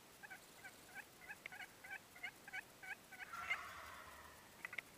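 Wild turkeys calling: a run of about a dozen short yelping notes at a steady pace, then a gobble about three and a half seconds in.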